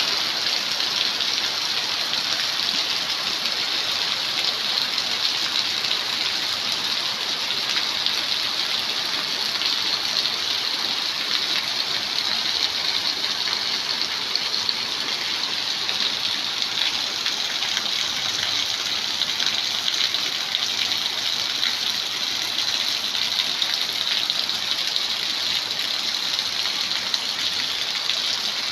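Heavy rain pouring down steadily, an even dense hiss with fine patter of drops.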